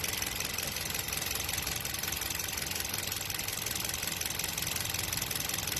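Toyota Vios engine idling steadily, a constant low hum and hiss.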